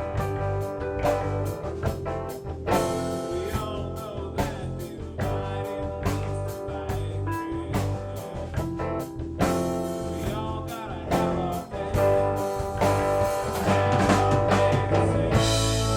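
A rock band jamming a bluesy groove: guitar lines over bass and steady drum hits.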